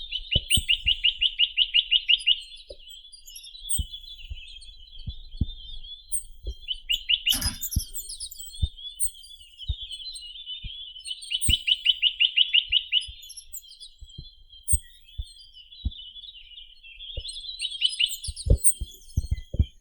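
Chinese nuthatch (Sitta villosa) singing: fast, even trills of about ten notes a second, repeated several times, with softer chattering notes between them. One sharp click comes about seven seconds in, and short low knocks are scattered throughout.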